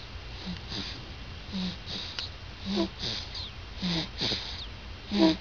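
Stridor in a sleeping person: noisy, rasping breaths about one a second, each with a short crowing tone. Stridor is the sign of a narrowed upper airway.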